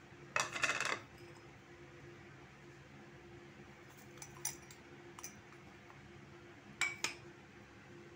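Metal ladle clinking against a metal cooking pan full of whole amla: a quick rattle of clinks about half a second in, a few light ticks in the middle, and two sharp clinks near the end.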